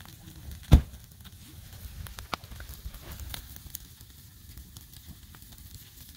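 Wood campfire crackling, with scattered sharp pops and one loud crack about a second in.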